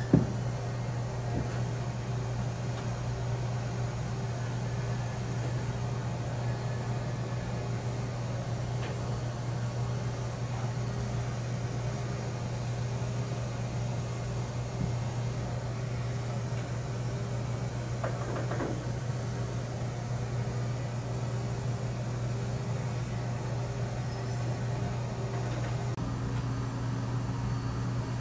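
Steady low mechanical hum of a small machine running. There is a sharp click at the very start and a brief scrape about 18 seconds in, and the hum's tone shifts slightly near the end.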